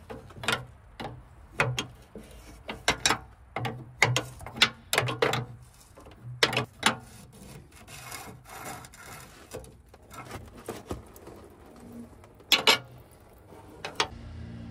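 Steel wrench working loose a heavily corroded JIC fitting on a hydraulic line: a string of short scraping clicks of metal on metal, several a second at first and thinning out later, with one more sharp click near the end.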